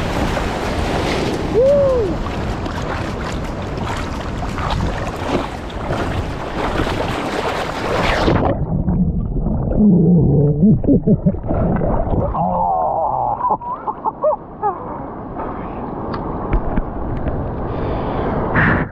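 River rapids rushing over rocks. About eight seconds in, the sound suddenly goes muffled and gurgling as the action camera's microphone goes under the water, with bubbling and warbling water noise around the submerged housing.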